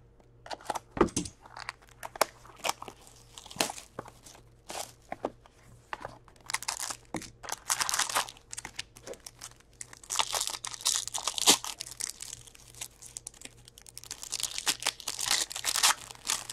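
Hands opening a cardboard hockey card box and its packs: short clicks and scrapes of card stock being handled, then three longer stretches of plastic wrapper crinkling and tearing.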